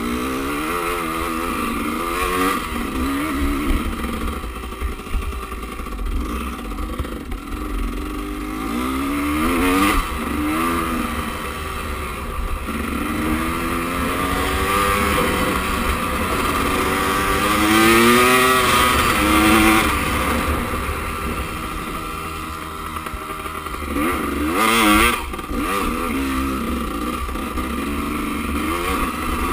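Enduro motorcycle engine close up on the riding bike, revving up and down repeatedly as it rides a rough hillside trail, with its loudest, highest revs a little past halfway.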